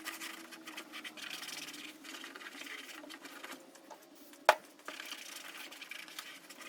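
Rag rubbing and wiping over plastic in an uneven, scratchy rustle, with one sharp click about four and a half seconds in.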